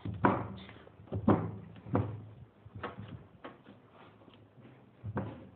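Hands kneading semolina and flour dough on a large brass plate: a series of irregular dull knocks as the dough is pressed and pushed against the metal, loudest in the first two seconds.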